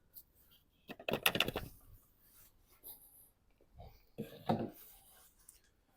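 A few short, quiet rubbing and knocking sounds of hands handling parts in an engine bay, in two brief clusters about a second and about four seconds in.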